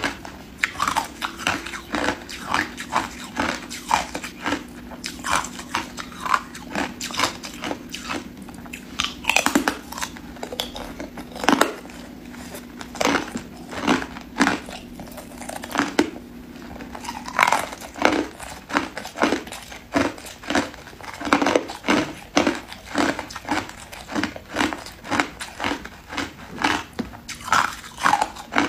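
Hard clear ice being bitten and chewed: a long run of sharp, close-up crunches, a couple each second.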